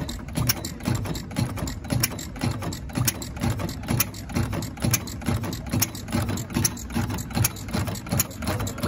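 Replica of Henry Ford's 1893 kitchen sink engine, a single-cylinder four-stroke, running on its own, firing in an even chuff about twice a second with light mechanical clicking between the firings.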